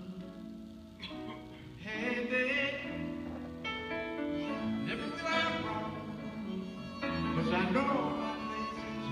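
Harmonica solo over piano and acoustic guitar accompaniment, the harmonica holding notes that waver and slide in pitch. Its phrases swell louder about two seconds in and again near the end.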